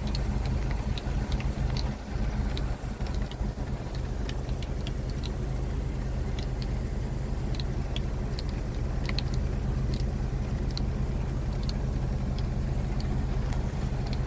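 BMW Z4 engine idling steadily, heard from inside the car, with scattered light ticks of raindrops landing on the car.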